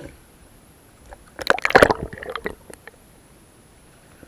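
Water sloshing and splashing in one burst about a second and a half in, lasting about a second.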